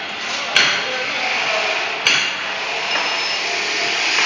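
Slat-chain conveyor line running with a steady rushing noise, broken by two sharp metallic knocks about a second and a half apart.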